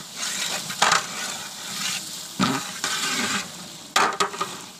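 Long-handled metal ladle stirring beef in a large aluminium degh, scraping and knocking against the pot a few times, with the meat sizzling in the hot pot.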